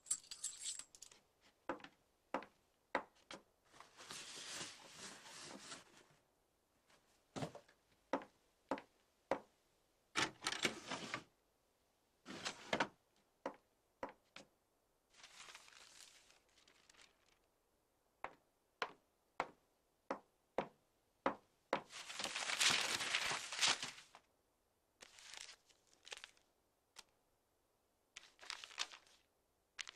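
A string of sharp knocks and clicks mixed with several longer rustling swishes, the longest and loudest about two-thirds of the way through.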